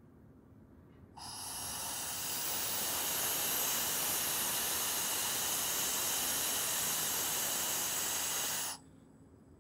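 Compressed air hissing out through a yard banjo's valve, venting a train's brake pipe for a 15 psi reduction that applies the brakes in a number one brake test. The hiss swells in about a second in, holds steady for about seven seconds, then cuts off suddenly near the end.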